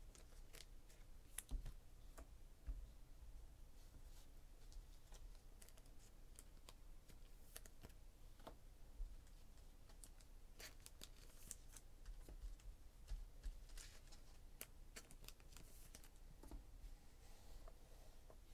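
Near silence, with scattered faint light clicks and taps at irregular intervals.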